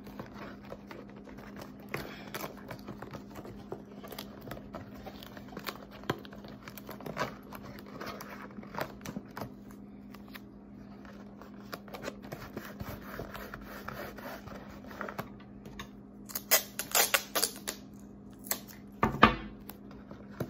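Masking tape being handled and pressed around a balloon's neck on a paper plate: small crinkles, taps and scrapes, with a few louder rasping strokes near the end, over a steady low hum.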